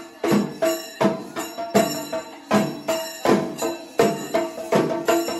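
Rhythmic percussion music with bells: sharp strikes, about two to three a second, each leaving a ringing tone.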